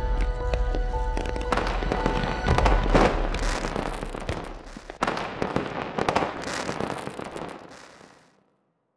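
Fireworks crackling and popping, with sharp bangs about three and five seconds in, over music at first; the sound fades away near the end.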